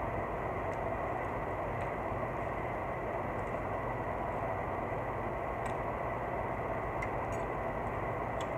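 Steady hum and hiss of background noise, with a few faint clicks from chewing crisp fried plantain (tostones).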